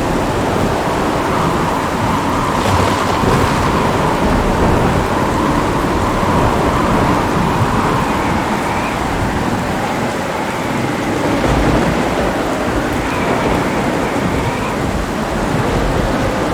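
Heavy rain falling steadily, with low thunder rumbling underneath.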